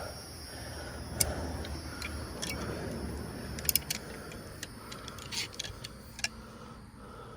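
Scattered light clicks and knocks, a second or so apart, over a low rumbling background: handling noise from working a boat fuel tank's fitting into its fuel hose.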